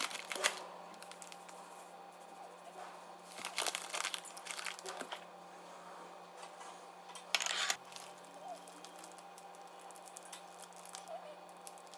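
Crinkling and light clattering of objects being handled, in a few short bursts over a steady low hum.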